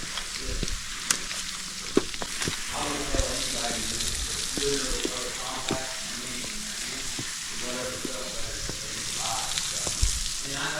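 Steady hiss of water pouring down a waterfall, with a few sharp knocks scattered through it.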